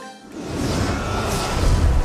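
Background music: a plucked tune breaks off, and about a quarter second in a whoosh with a deep rumble swells up and grows louder, opening a dramatic music cue.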